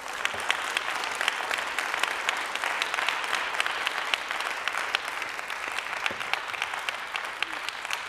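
Audience applauding: many hands clapping together, a dense steady patter that starts abruptly and begins to thin out near the end.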